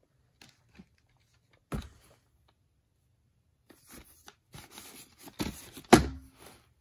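Plastic VHS clamshell cases being handled: a single knock about two seconds in, then rustling and clicking as a case is picked up and turned over, with a louder knock about six seconds in.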